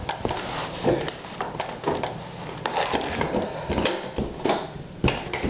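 Irregular knocks, clicks and rustles of an extension cord being handled and pressed in a door, with a sharper thump about five seconds in.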